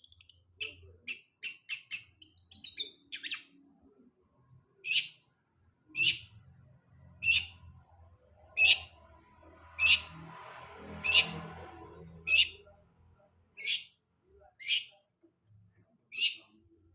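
Long-tailed shrike (cendet) giving short, sharp, high-pitched call notes: a quick run of about five near the start, then single notes about once a second. A faint thin high tone is held for a few seconds in the middle.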